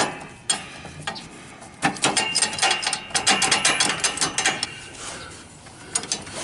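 Quick, sharp metallic clicking and rattling from a riding mower's deck-level adjuster as the stuck bolt is worked up and down to free it. The clicks come thickest through the middle.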